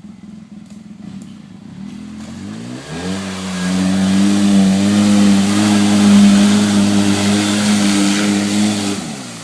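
Polaris RZR 800's twin-cylinder engine revving up, held at high revs for about six seconds, then easing off near the end.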